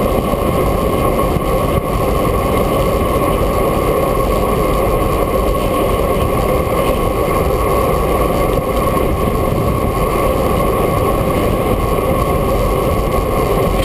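Steady rush of wind and road noise on a GoPro action camera mounted on a road bicycle's handlebar while riding along asphalt.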